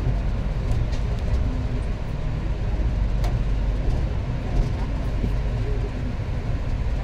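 Steady low rumble of an AC double-decker express train rolling out of a station, heard from inside the coach, with a few faint clicks.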